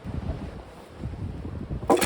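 Strong wind buffeting the microphone in gusts, a low uneven rumble. Near the end comes a sudden sharp clatter, the loudest sound.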